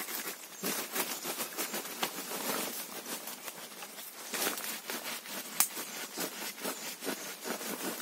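Rustling and crackling of dry leaves and banana plant debris being handled and cut at the base of a banana plant: a dense run of small irregular clicks, with one sharper snap about five and a half seconds in.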